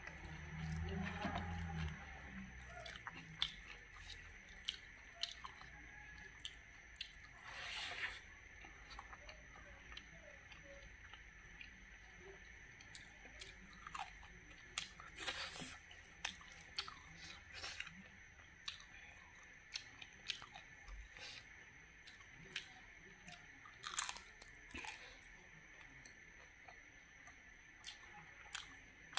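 Close-up chewing and crunching of a mouthful of rice and cooked wood larvae, with frequent small crunches and mouth clicks. Louder crunching bites come about eight, fifteen and twenty-four seconds in.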